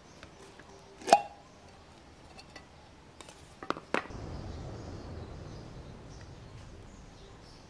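Metal lid of a tin of wood stain coming off its rim with a sharp metallic pop about a second in, ringing briefly. A couple of light clinks follow near four seconds as the lid is put down, then a low rumble of the tin being handled and lifted.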